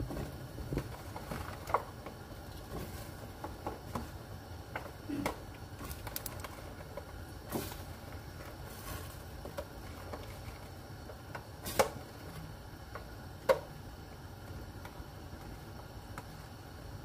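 Chopped vegetables and leafy greens dropped by hand into a stainless steel pot of simmering broth: scattered soft taps and rustles, with two sharper knocks in the second half, over a steady low hum.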